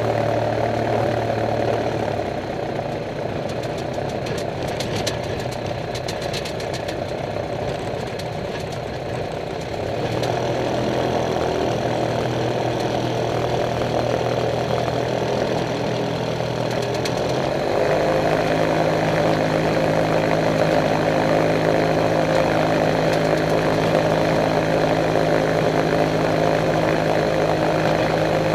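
Kolb Kolbra ultralight's engine and propeller at low taxi power, heard from the open cockpit. The engine note drops about two seconds in, picks up about ten seconds in and steps up again shortly before twenty seconds, then holds steady, with a few light rattling clicks early on as the plane rolls over the grass.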